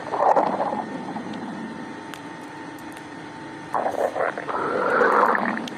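Stomach growling: a short growl at the start and a longer one about four seconds in, over a faint steady hum.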